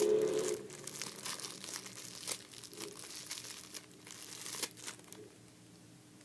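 Clear plastic bag crinkling in the hands as a squishy toy is unwrapped, in a run of irregular crackles that stops about five seconds in.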